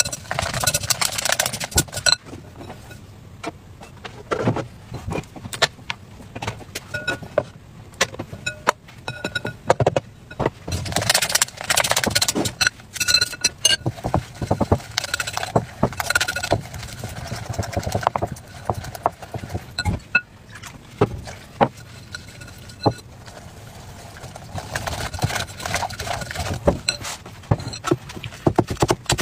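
Chopsticks beating a thick batter in a glass bowl, clicking and scraping against the glass in bursts with short pauses between them.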